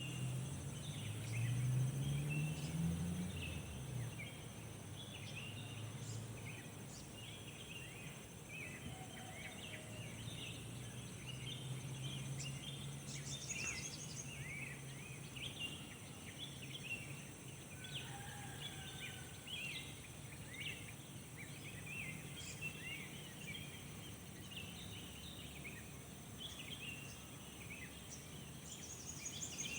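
Morning chorus of many birds chirping continuously over one another. Underneath runs a low steady hum, loudest in the first few seconds, where it rises in pitch.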